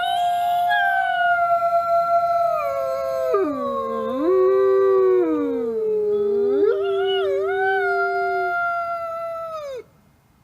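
Grey wolves howling together, at least two voices overlapping: one long, nearly level howl that slowly sinks in pitch, while another swoops down and back up several times. The howling stops abruptly near the end.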